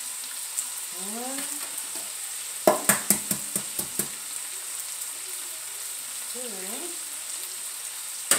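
Sausage and diced potatoes frying in a pan with a steady high sizzle. A quick run of about six sharp knocks comes about three seconds in, and another single knock comes near the end.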